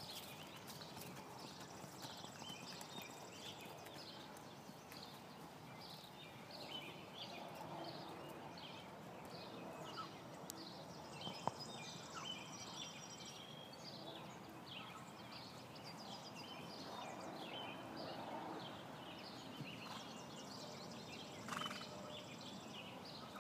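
A horse walking on grass, its hoofbeats faint, with many short high bird chirps throughout.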